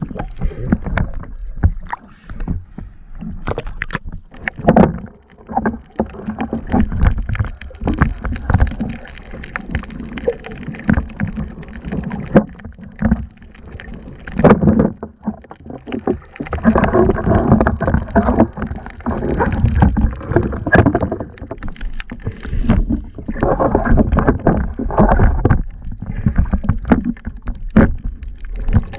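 Muffled underwater noise picked up by a camera in a waterproof housing: water surging and rushing against the housing, with irregular knocks and bumps.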